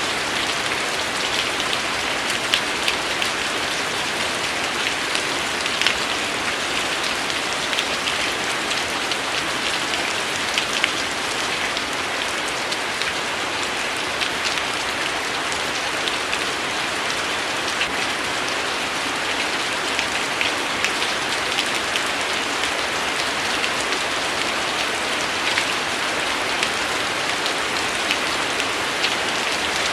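Steady rain falling, an even hiss of rain with many separate drop ticks scattered through it.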